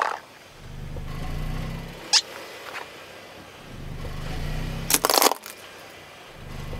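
Rubber squeaky toys flattened under a car tyre, each squeaker giving a long, low, drawn-out squeal as it is squashed, twice, with a third starting near the end. Hard plastic cracks sharply at the very start and again loudly about five seconds in.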